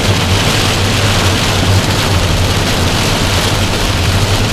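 Rain hitting the windscreen and roof of a moving car, over a steady low drone of engine and tyres on a wet road, heard from inside the car.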